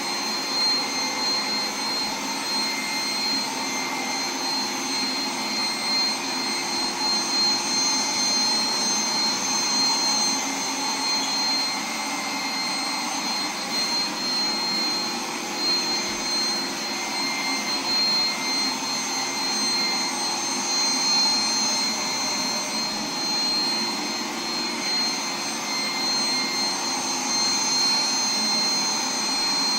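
iRobot Roomba 980 robot vacuum running steadily: a constant whir with a high-pitched whine from its suction motor and brushes.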